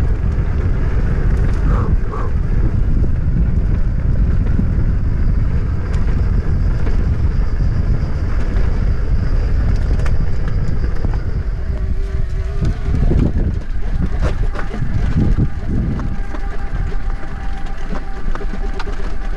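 Wind buffeting the microphone of a mountain biker's camera, over the steady noise of the bike's knobby tyres rolling along a paved path.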